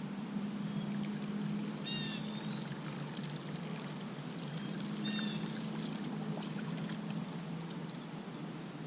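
Water moving steadily around a kayak on a river, with a short chirp twice, about two and five seconds in, and a few faint clicks.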